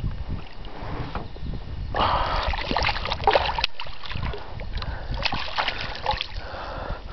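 A large hooked lake trout thrashing and splashing at the water's surface, in bursts about two seconds in and again around five seconds in.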